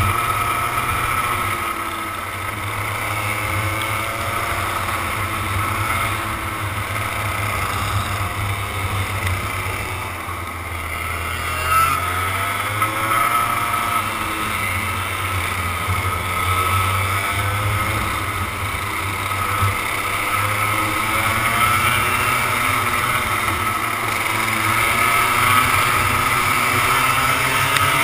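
Onboard sound of a 100cc two-stroke racing kart engine at racing speed, its pitch repeatedly rising and falling as it revs out and backs off through the corners.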